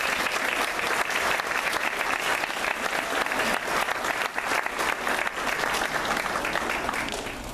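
A large audience of schoolchildren and adults clapping. The applause thins out and fades near the end.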